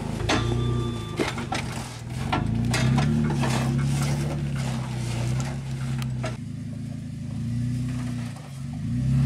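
Jeep Wrangler JK Rubicon engine running at crawling speed over rocks, its revs rising briefly twice, with scattered crunches and knocks in the first half.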